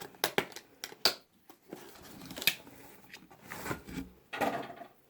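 Cosmetics packaging being opened by hand: a few sharp clicks in the first second, then short bursts of rustling as wrapping is pulled away.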